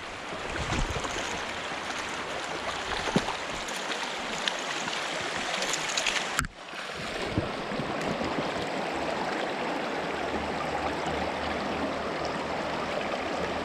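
Creek water running, a steady rushing noise, with a few small sharp ticks over it. It dips out abruptly about six and a half seconds in and comes straight back.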